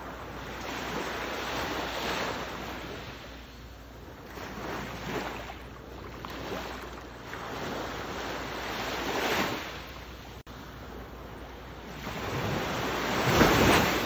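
Ocean waves surging and washing in, several swells of rushing surf, the biggest one near the end.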